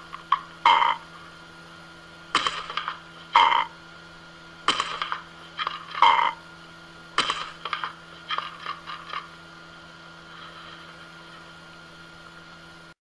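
An Amazon parrot squawking in short, harsh calls, about one a second, with a quick run of smaller calls about nine seconds in, over a steady low hum. The sound cuts off abruptly near the end.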